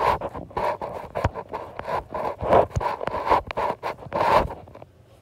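Handling noise from a phone: the microphone rubbing and bumping against clothing in a quick, irregular run of scratchy scrapes and knocks that stops near the end.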